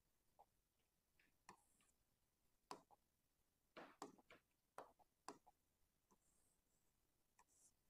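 Near silence with faint, irregular taps and clicks from a pen tapping and drawing on an interactive display board, and a few brief scratchy scrapes.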